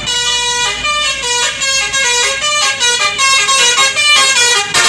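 Bus telolet basuri horn playing a loud, fast tune of stepping notes as the bus passes.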